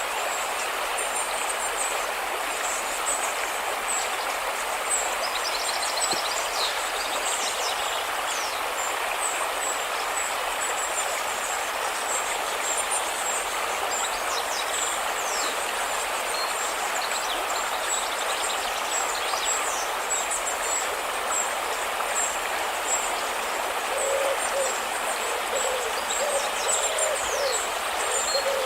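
River water rushing steadily, with small birds chirping high and thin throughout and a run of lower hoot-like calls near the end.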